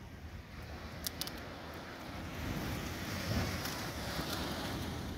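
Beach surf washing in, swelling about halfway through, over steady wind noise on the microphone, with a couple of faint clicks about a second in.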